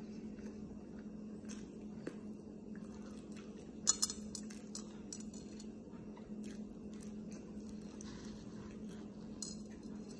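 Close-up eating sounds: chewing grilled flatbread and kebab, with a few sharp clicks about four seconds in and again near the end, over a steady low hum.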